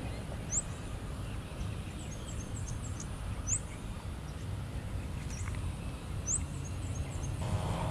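Birds calling: a short, sharp rising whistle repeated three times about three seconds apart, with softer chirps between, over a steady low rumble.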